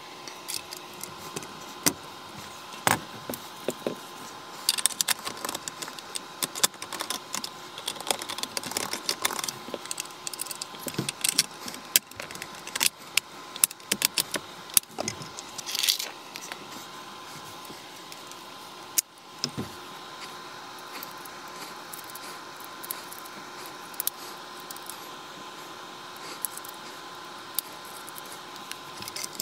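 Sharp metallic clicks, snaps and rattles of a Remington Model 511 Scoremaster .22 rifle and its parts being handled and worked by hand. The clicks come thick and irregular for the first half and thin out to a few isolated clicks near the end.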